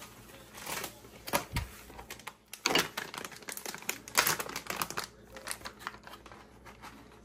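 Plastic bag of Kraft shredded cheese crinkling and rustling in the hands as the cheese is shaken out into a pot: quick, irregular crackles that die down about five seconds in.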